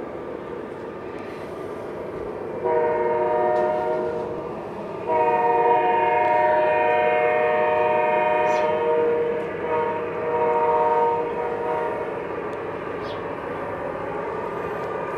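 Sound system of an MTH B40-8 model diesel locomotive blowing its multi-chime horn: a long blast about three seconds in, a longer one from about five seconds, then a short one near ten seconds, over a steady running rumble.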